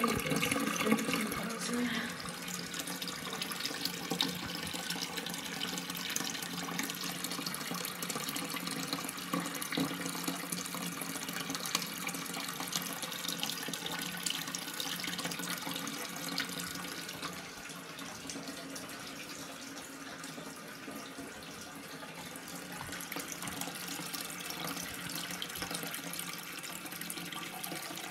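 Low-level Armitage Shanks toilet cistern refilling after a flush: a steady hiss of water running in through the float-operated fill valve.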